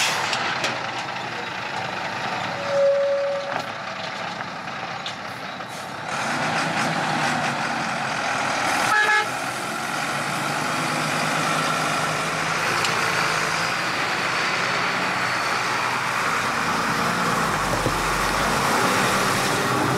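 An old converted school bus, restarted after stalling, runs its engine and pulls away over a gravel dirt road. There is a short horn toot about three seconds in. The engine grows louder and lower about six seconds in as the bus gets going, and a second brief horn blast comes just before nine seconds.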